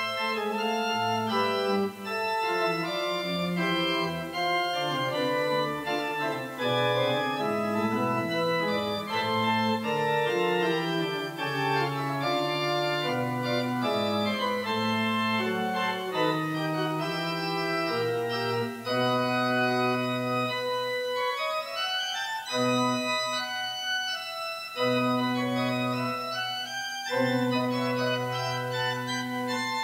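Pipe organ playing sustained chords with moving inner lines, broken in the second half by several quick rising runs of notes.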